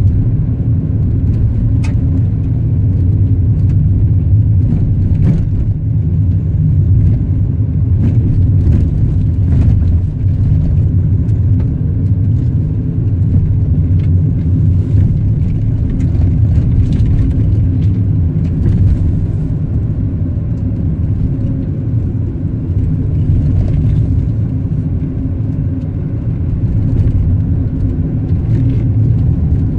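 Car on the move heard from inside the cabin: a steady low rumble of engine and tyre noise, with a few faint ticks.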